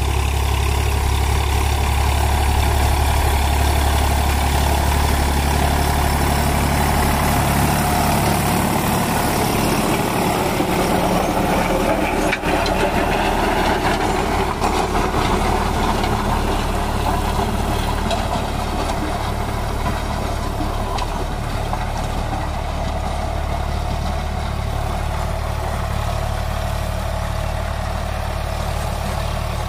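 Eicher 548 tractor's three-cylinder diesel engine running steadily under load while it drives a rotavator, whose blades churn through dry soil. The low engine hum is strongest for the first several seconds. The sound gets a little quieter in the last third as the tractor moves off across the field.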